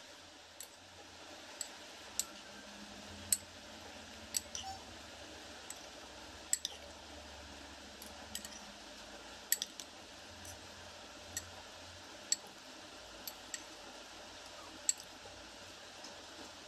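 Metal spoon and fork clinking against a ceramic bowl as noodles are tossed, with sharp irregular clinks about once a second over a faint steady hiss.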